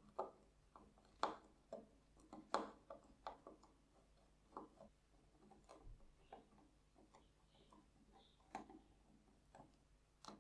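Faint, irregular clicks and ticks of a screwdriver turning small slotted screws out of the plastic cable clamp inside a soldering iron's handle, the sharpest in the first few seconds.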